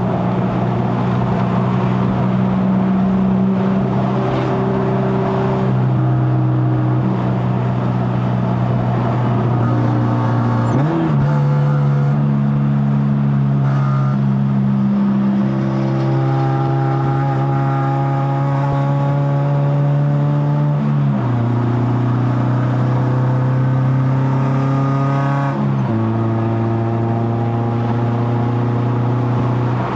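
Honda K24A four-cylinder engine with a straight-pipe stainless exhaust and KTuned muffler, droning at fairly steady revs while driving. Its pitch shifts briefly three times.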